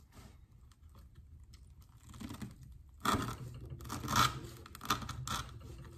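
S30V pocketknife blade sawing through 3/4-inch manila rope on a wooden board: a series of back-and-forth cutting strokes through the rope fibres. The strokes are faint at first and come thicker and louder from about three seconds in.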